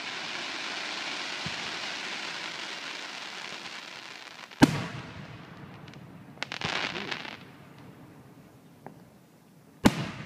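Aerial fireworks shells bursting overhead: two sharp booms about five seconds apart, one about halfway and one near the end. A long hissing shower of sparks fills the first half, and a brief spell of crackling comes about two-thirds of the way through.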